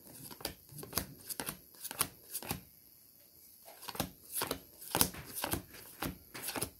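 Tarot cards being shuffled by hand: a string of irregular soft flicks and taps of the cards, with a quieter pause of about a second in the middle.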